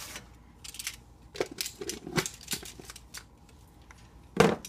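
Spice jars being handled on a kitchen counter: small clicks and scrapes of jars and lids, then a louder knock near the end as a jar is set down.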